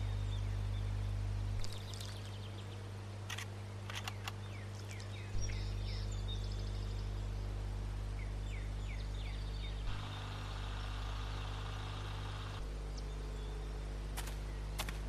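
Birds chirping in short falling notes over a steady low hum, with a few sharp clicks; about ten seconds in, a harsher hiss-like noise comes in for a couple of seconds and stops.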